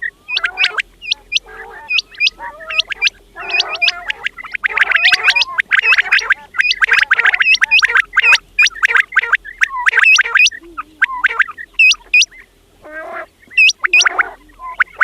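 Quails calling: many sharp, high calls repeated in quick groups of two or three, over lower gurgling calls.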